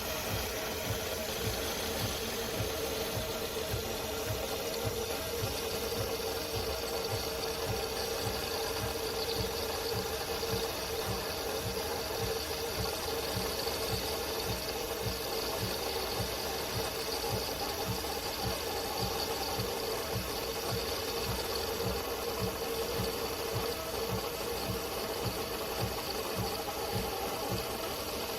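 De'Longhi Magnifica Start fully automatic espresso machine running steadily, a constant hum with a fast, even pulsing underneath.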